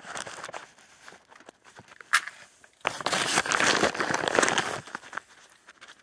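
Crinkling and rustling of a plastic bag as handfuls of peanuts are grabbed out of it to toss onto the deck, in two spells, with a single sharp tap about two seconds in.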